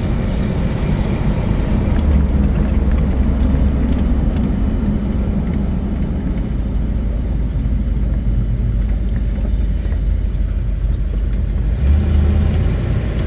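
Classic Ford Thunderbird under way, its engine and road noise heard from inside the moving car as a steady low rumble that swells slightly near the end.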